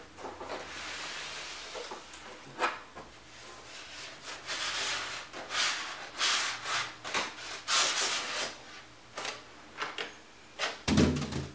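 Cardboard and packing material rubbing and sliding in a series of scrapes and swishes as the iMac is handled in its box, with a dull thump near the end.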